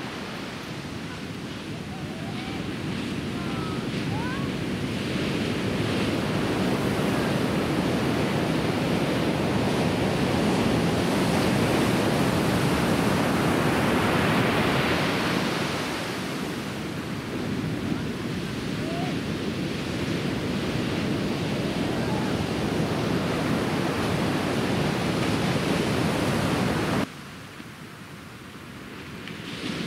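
Ocean surf breaking on a beach: a steady rushing wash that swells and eases, with wind buffeting the microphone. Near the end it drops abruptly to a quieter wash.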